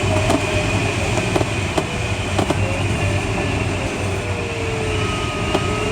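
Steady rush of airflow inside the cockpit of a Schleicher ASK21 glider in flight, with faint thin tones sliding slowly in pitch and a few light clicks.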